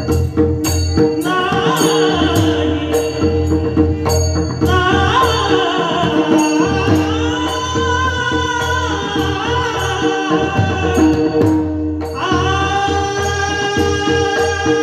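Warkari kirtan chal: male voices singing long, gliding devotional lines over a steady drone, with pakhavaj drum strokes and jingling hand cymbals keeping time. The singing breaks off briefly about twelve seconds in, then resumes.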